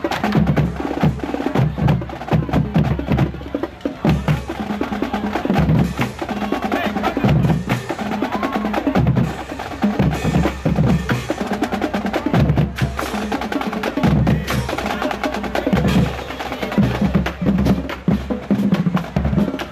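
Percussion-heavy music with a fast, steady drum beat and wood-block-like clicks.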